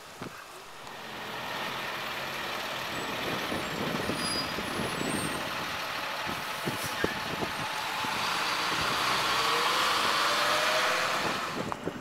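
Vehicle running along a road: a steady rush of engine and road noise that builds over the first couple of seconds, with the engine rising in pitch about nine seconds in, then falls away near the end.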